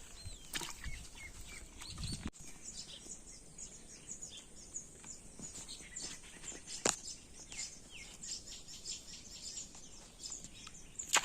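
Small birds chirping and calling, many short chirps over a faint steady high hiss. A few sharp clicks or knocks cut through, one about seven seconds in and a louder one near the end.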